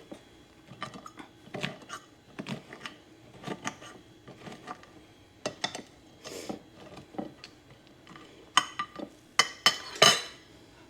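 A metal fork tapping and scraping against a dish while breaking up a pan of cornbread: a run of light clicks and scrapes, with a few sharper, louder clinks near the end.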